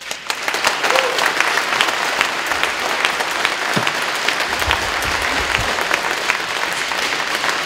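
A crowd applauding: many people clapping, breaking out all at once and going on steadily.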